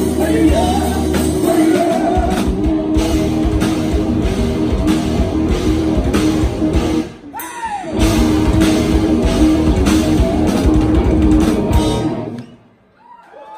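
Live rock band playing loud distorted electric guitars, bass and drum kit through the final bars of a song. There is a short break about seven seconds in, then the band crashes back in and stops dead about twelve seconds in.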